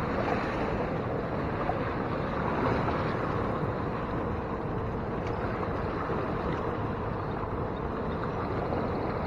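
Steady rushing noise of a fast-flowing river and wind, even throughout with no distinct events.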